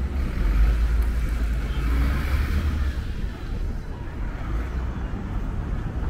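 Road traffic noise: a deep steady rumble of passing cars and a city bus, with tyre hiss that swells about two seconds in and then eases.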